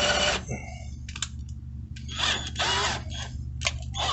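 Cordless drill boring a 3/8-inch hole in a wooden chair leg, stopping about half a second in. Scattered clicks and a few short noisy bursts follow.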